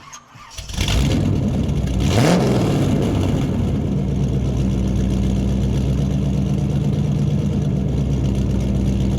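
Car engine running: a short rev that rises and falls about two seconds in, then a steady idle.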